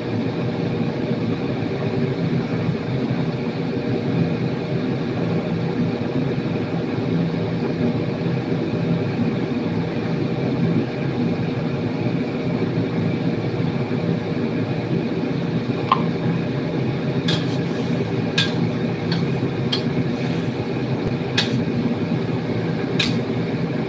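Steady hum of a kitchen range hood fan and gas burner while food fries in a steel wok. In the last seconds a few sharp metal clicks come from the spatula knocking against the wok as it stirs.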